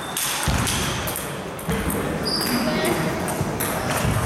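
Table tennis ball clicking off paddles and the table during a rally, with irregular short knocks.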